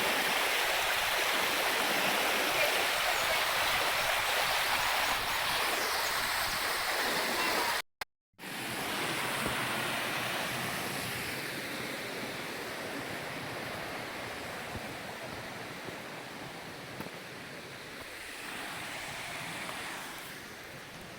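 Steady rush of running water from a moorland stream. It breaks off for a moment about eight seconds in, then carries on, slowly growing quieter.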